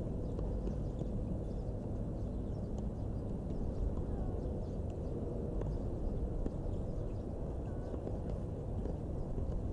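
Outdoor ambience at a tennis court: a steady low rumble, with a few faint sharp knocks and a couple of faint short chirps.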